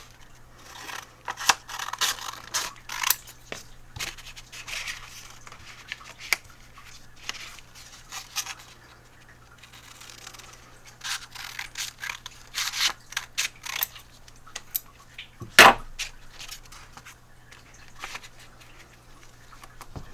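Sandpaper and 3D-printed plastic sander parts being handled on a bench: irregular rustling, scraping and light clicks, with one sharp knock about three-quarters of the way through.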